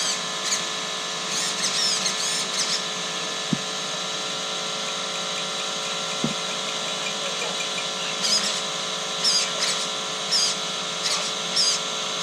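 Screwdriver squeaking in short high bursts while driving the screw that holds a servo horn onto an RC truck's steering servo, over a steady hum. Two light clicks land in the middle.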